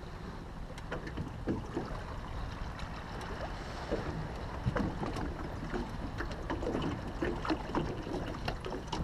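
Steady wind and water rushing around a small boat on open water. About halfway through, a hooked fish splashes at the surface beside the hull, with scattered short splashes and knocks as it is brought up and lifted aboard.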